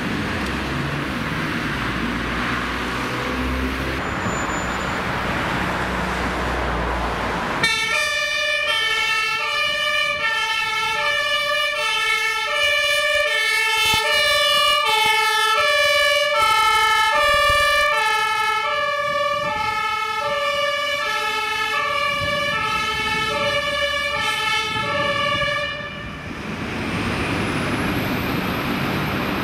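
Road traffic and a heavy vehicle's engine rumble. About eight seconds in, a German two-tone emergency siren (Martinshorn) on a responding fire-brigade vehicle starts up, alternating steadily between a high and a low note for around eighteen seconds, then cuts off abruptly, leaving traffic noise.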